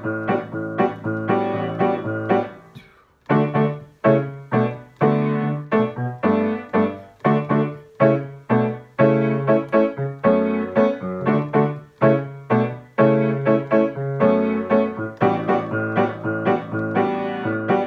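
Piano playing a rhythmic pattern of chords over a bass line, with a brief break about three seconds in.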